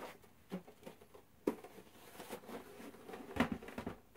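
Handling noise from a plastic Xbox One console case being turned over and set down: scattered light knocks and taps among quieter rubbing, with a sharper knock about a second and a half in and a few more near the end.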